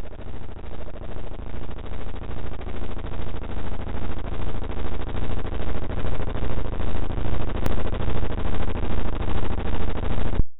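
Harsh synthetic buzzing drone made by turning video colour channels (RGB) into sound waves, pulsing about twice a second and cutting off abruptly to silence just before the end.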